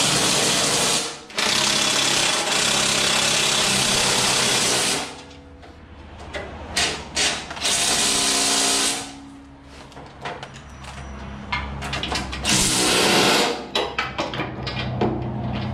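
Cordless impact driver running bolts tight on a snow blower's steel frame, in four runs of fast hammering: a short one, a long one of about three and a half seconds, then two short ones. Light metal clanks and knocks of bolts and tools in between.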